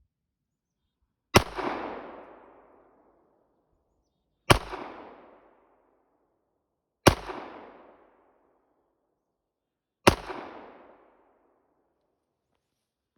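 Four shots from a Kimber 1911 .45 ACP pistol, spaced about three seconds apart, each sharp crack followed by an echo that dies away over about a second.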